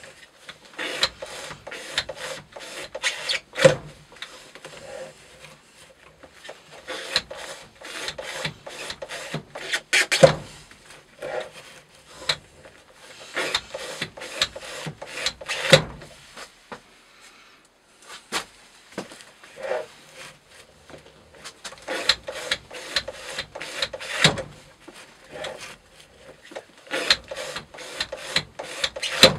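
Spyderco Para Military 2 knife's Maxamet blade slicing through thick twisted rope in a weighted cutting rig: the fibres crackle and rasp in bursts a few seconds long, several ending in a louder snap as the cut finishes, with short pauses between cuts. It is an edge-retention test of the knife's original 32° edge with a microbevel.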